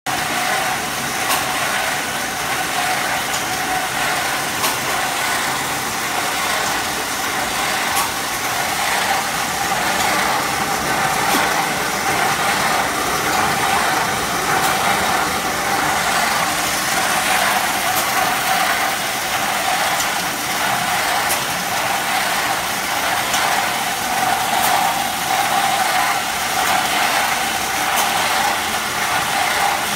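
Small 50 kg chocolate refiner conche running on test: its electric motor and gearbox turning the stainless drum with a steady mechanical running noise, and a faint click about every three seconds.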